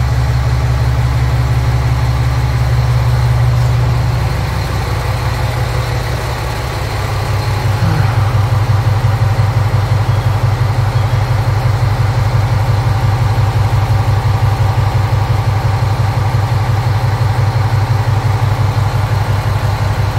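Large engine idling with a deep, even throb. It eases off for a few seconds, then settles into a steadier, louder pulsing rumble about eight seconds in.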